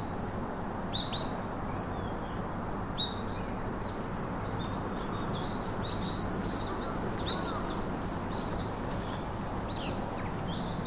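Small birds chirping again and again over a steady background hiss, with a few sharp, louder chirps in the first three seconds and a busier run of chirping after that.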